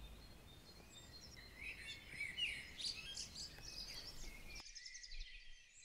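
Songbirds singing and chirping in short, wavering phrases over a faint low outdoor rumble, which cuts off suddenly near the end while the birdsong goes on.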